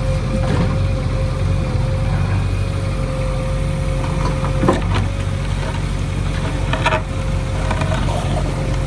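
Diesel engine of heavy earthmoving machinery running steadily, with a steady whine over it and a couple of short knocks partway through.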